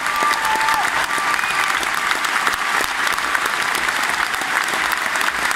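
Concert audience applauding, a dense steady clapping with no let-up.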